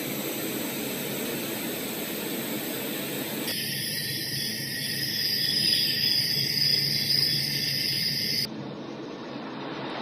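A baby white noise machine playing its sound tracks: a steady rushing noise that switches abruptly about three and a half seconds in to a brighter track with a high, insect-like shimmer, then changes again to a duller noise near the end.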